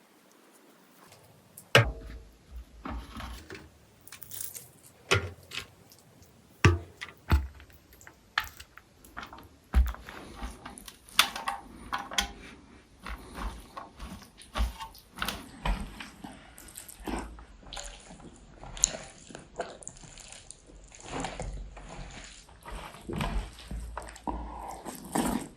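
Close-miked eating sounds of egg curry and white rice: a string of wet clicks and smacks, sparse at first and denser from about ten seconds in.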